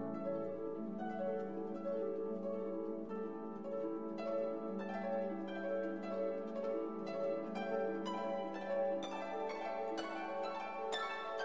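Quiet background music of plucked strings, harp-like notes picked out one after another.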